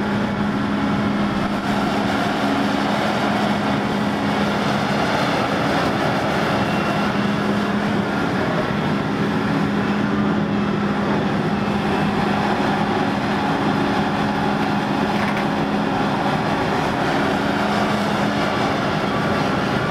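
Volvo EC950F crawler excavator working, its large diesel engine running steadily under load with a constant low drone as the boom and bucket dig into soil.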